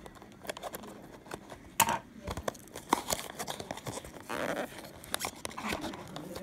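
Takara Tomy Ania cardboard figure box being opened by hand: the paperboard flap and insert scraping and crinkling, with sharp clicks and taps, the loudest a little under two seconds in.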